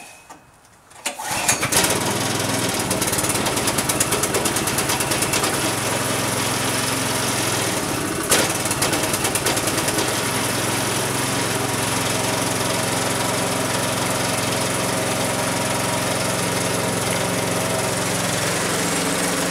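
Brand-new Predator 212cc single-cylinder overhead-valve engine on a snowblower, pulled with its recoil starter on a cold first start with the choke on; it catches about a second and a half in and then runs steadily at mid-throttle. A single knock sounds about eight seconds in.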